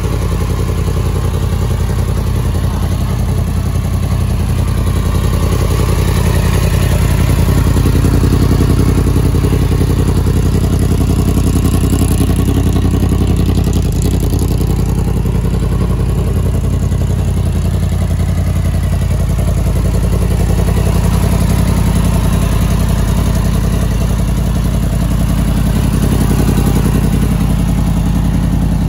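Yamaha MT-10 SP's 998 cc crossplane inline-four engine idling steadily through an exhaust with the catalytic converter removed.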